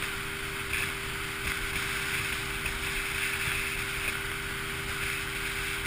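Small motorboat under way at low speed: a steady engine hum under an even rush of wind and water noise.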